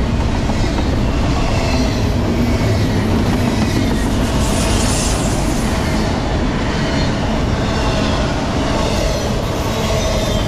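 Double-stack intermodal well cars rolling past close by: a steady, loud rumble and clatter of steel wheels on rail, with faint squealing tones at times.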